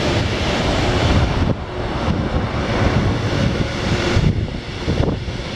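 Loaded freight wagons of a coke train rolling past on the rails, a dense steady rumble of wheels, with wind buffeting the microphone.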